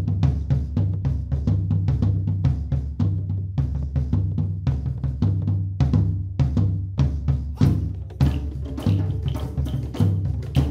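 Percussion music: fast, dense drum strokes over a low bass line that steps between notes.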